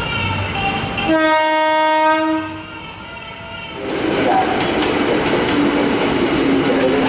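A diesel locomotive's horn sounds one steady blast about a second in, lasting a little over a second. After a short lull, a train rolls by with steady rumble and wheel noise on the track.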